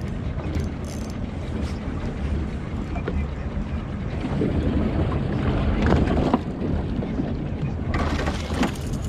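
Steady low rumble of wind and a boat on open water, with a few knocks and splashes about six seconds in and near the end as a hooked fish is drawn up to the boat's side.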